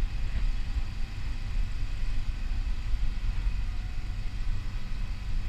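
Steady low rumble of the camera-carrying vehicle driving slowly over grass, wavering in level.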